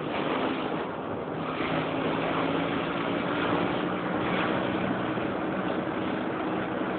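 650 cc dune buggy engine running steadily while driving, its note shifting a little in pitch, under a steady rushing noise.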